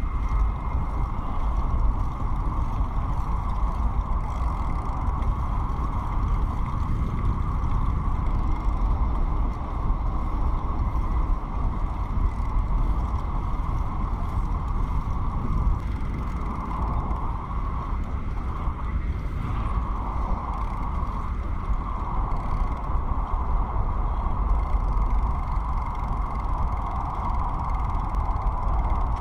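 A bicycle riding along, with wind rumbling on the microphone and the steady running noise of the tyres and drivetrain, a faint steady whine above it.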